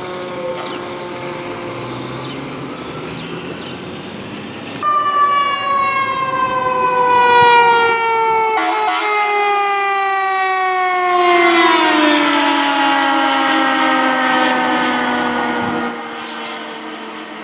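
Fire truck siren wailing, then, after a cut, a second fire truck's mechanical siren winding down in one long, slowly falling wail. Its pitch drops further as the truck passes with a rush of road noise, and it fades away near the end. Two short bursts of noise come midway.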